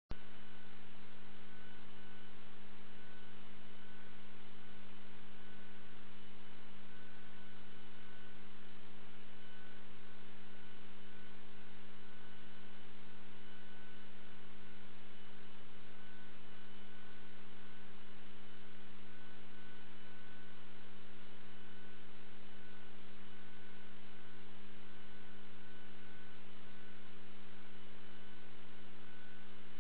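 Steady electrical mains hum with a faint higher whine over low hiss, unchanging throughout, with no other sounds standing out.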